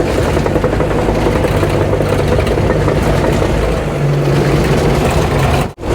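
Diesel engine of a tracked earthmoving machine running steadily, its note growing a little stronger about four seconds in. The sound cuts out for an instant just before the end.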